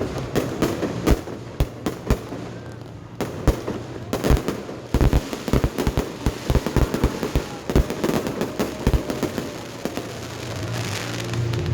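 Aerial fireworks bursting in a rapid string of sharp bangs with crackle between them, thickest in the middle stretch.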